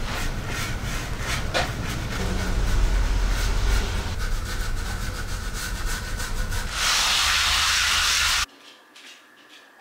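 Scratchy rubbing strokes of stain being brushed and wiped onto wood, over a low steady rumble. About seven seconds in, a paper towel scrubs hard on the concrete floor, louder and hissing, then the sound cuts off abruptly to quiet room tone.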